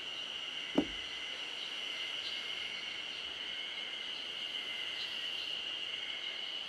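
Steady high-pitched drone of insects in summer foliage. A single short sharp sound about a second in, falling quickly in pitch, stands out above it.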